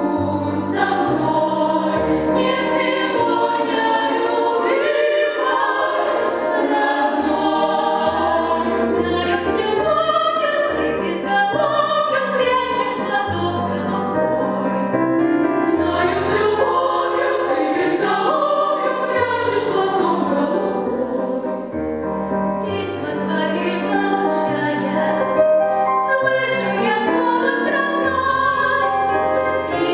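Mixed choir of women's and men's voices singing a song in parts, with the words audible as sibilant consonants and a low bass line underneath.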